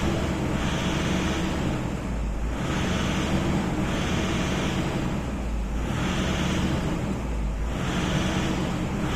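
Toyota Innova diesel engine running with its speed rising and falling in a slow, regular surge every two to three seconds: unstable rpm from a fault in the fuel system, heard during a fuel-system leak test.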